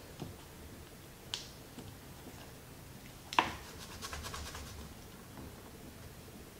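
Paper release liner being peeled off double-sided tape by hand: light scratchy crackles and a few ticks. The sharpest crack comes about three and a half seconds in, followed at once by a quick run of small crackles.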